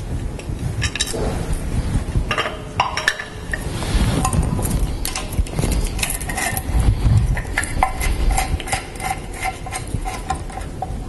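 Small metallic clicks, clinks and rattles from hands unscrewing a timing chain guide's bolts and working the guide loose from the front of a Triumph Stag V8 engine block, with low knocks of handling throughout.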